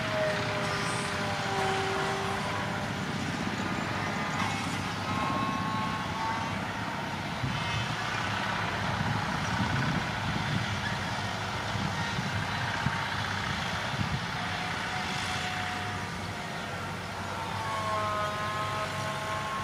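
Dump truck engines running steadily as the trucks drive across a dirt site, a continuous low rumble. Short high tones come and go over it.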